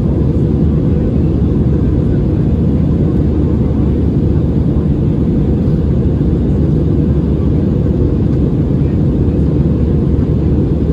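Steady low roar of an Airbus A320-216's engines and airflow, heard inside the passenger cabin. The aircraft's engines are CFM56-5B turbofans.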